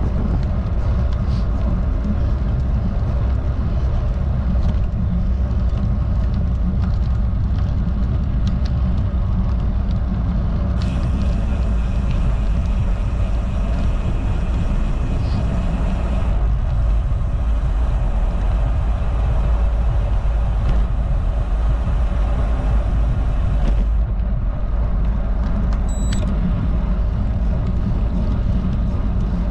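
Wind buffeting the microphone of a road bike's action camera while riding along, a steady heavy rumble. For several seconds in the middle a fine high hiss rides over it, the rear freewheel running while the rider coasts.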